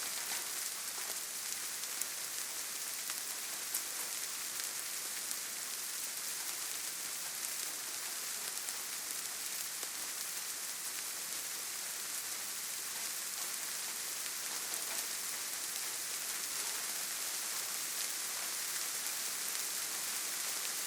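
Steady gentle rain, a soft even hiss scattered with small drop ticks. The drops fall on leaves, grass and ground.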